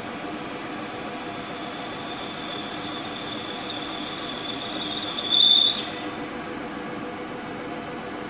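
Vertical milling machine running with an end mill cutting along the edge of a large metal tube, a steady hum of spindle and cut. A high squeal from the cutter builds and peaks loudly for about half a second some five seconds in, then drops back to the steady hum.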